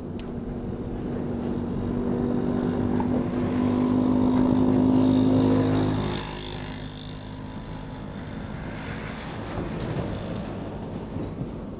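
An unseen engine running at a steady pitch, growing louder over the first five seconds, then dropping away abruptly about six seconds in, leaving a fainter rumble.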